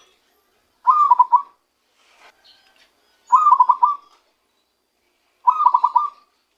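Zebra dove (perkutut) cooing: three short phrases of quick staccato coos, about two and a half seconds apart. This is the natural song of a newly trapped wild bird.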